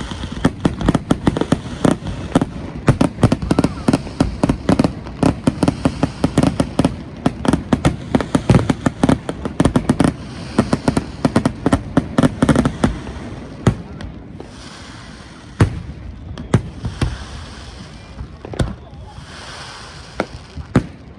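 Aerial fireworks going off in a rapid barrage of dense bangs and booms for about the first thirteen seconds. The barrage then thins to scattered single bangs, with crackling, fizzing bursts in between.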